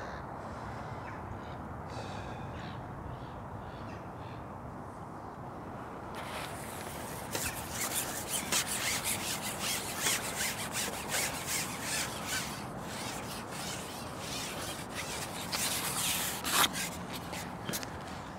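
Crows cawing repeatedly, starting about six seconds in, over a steady outdoor background hiss.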